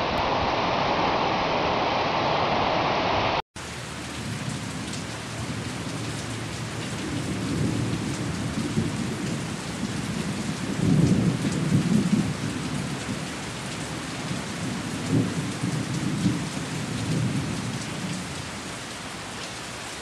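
A dense rushing water noise cuts off sharply about three and a half seconds in; then a thunderstorm recording follows: steady rain hiss with low rolls of thunder, the loudest a little past the middle and another a few seconds later.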